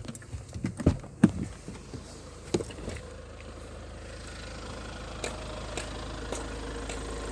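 A few sharp clicks and knocks in the first three seconds, then a car's engine idling with a steady low hum that grows slightly louder.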